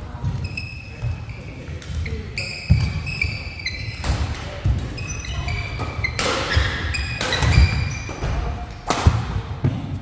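Badminton doubles rally on a wooden indoor court: several sharp cracks of rackets striking the shuttlecock, with court shoes squeaking on the floor and footsteps thudding between shots.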